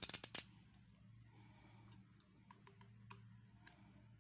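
Yellow snap-off utility knife's slider ratcheting the blade out: a quick run of about half a dozen sharp clicks at the start. A few faint ticks follow later as the blade is set against a plastic bottle neck, over a low steady hum.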